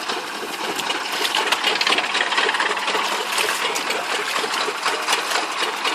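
Rice combine harvester running, with a dense rapid metallic clatter from its machinery.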